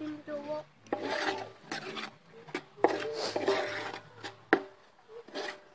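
A utensil scraping and stirring vegetables frying in a disco, a steel plough-disc wok. It goes in repeated rasping strokes, with a few sharp clanks against the metal.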